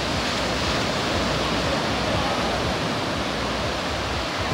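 Ocean surf washing onto a beach, a steady rush of waves.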